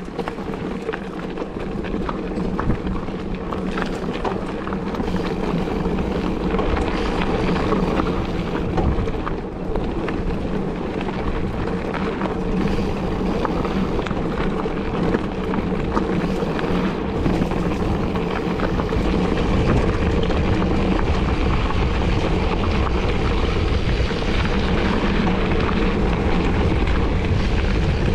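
Wind rushing over the microphone of a camera on a moving mountain bike, mixed with the crackle and rumble of tyres rolling over a rough dirt trail. The noise grows gradually louder, heaviest in the low end in the last third.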